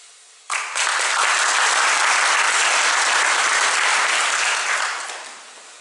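Audience applauding. The clapping starts suddenly about half a second in, holds steady, and dies away near the end.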